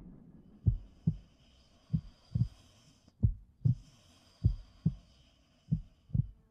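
Heartbeat sound effect: low double thumps, lub-dub, repeating about every 1.3 seconds over a faint high hiss.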